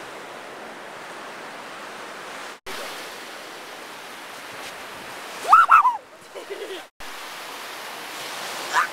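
Steady wash of surf on a beach, cutting out briefly twice. About five and a half seconds in, a short loud exclamation from a voice rises above it.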